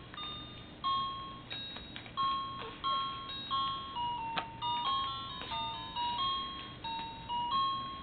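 A simple melody of bell-like notes, one at a time, about two a second, each struck and fading away. A couple of faint clicks fall in between.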